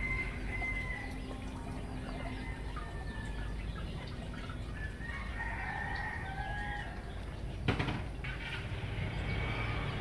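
Farmyard chickens: a rooster crowing several drawn-out calls and clucking. A single sharp knock about three-quarters of the way through.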